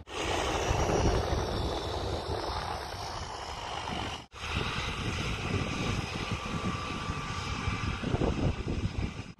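Single-engine floatplane's propeller engine running steadily as the plane taxis and takes off across the water. The sound cuts out for an instant a little past four seconds in.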